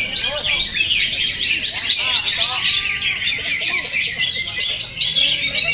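Several green leafbirds (cucak ijo) singing at once in a dense, unbroken chorus of rapid high chirps and whistles, with some lower rising-and-falling calls mixed in.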